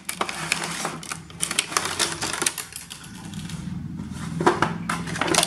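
Cardboard box and clear plastic blister packaging being handled: the flaps are opened and the plastic tray slid out, giving irregular clicks, scrapes and crinkles that thin out midway and pick up again near the end.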